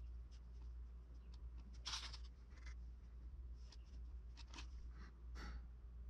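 Hands working sculpting clay: faint, short scratching and rubbing strokes, the loudest about two seconds in, over a steady low hum.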